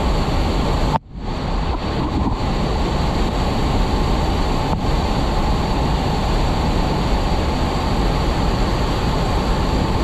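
Steady rushing noise of a tall waterfall in forceful flow, its water crashing into the plunge pool and rushing over rocks below. The sound drops out for a moment about a second in.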